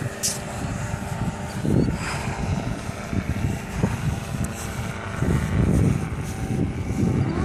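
A powered parachute's propeller engine running faint and steady in the distance, under a gusty low rumble of wind on the microphone that swells about five seconds in. There is a single sharp click just after the start.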